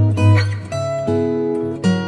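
Background music: acoustic guitar playing plucked notes and chords over a steady bass.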